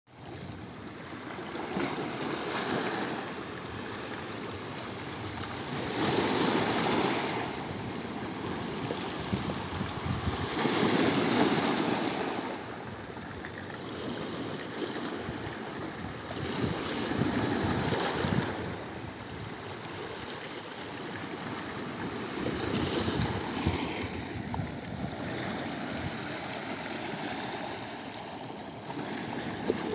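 Small Black Sea waves washing in over rocks and pebbles at the water's edge. The surf swells and falls back every four to six seconds.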